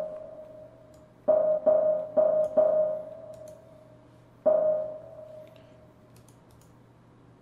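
A software instrument note played back in the Renoise sampler, triggered at the same pitch four times in quick succession about a second in and once more a few seconds later. Each hit fades quickly under the short-decay volume envelope just set. A steady low hum and a few faint mouse clicks lie underneath.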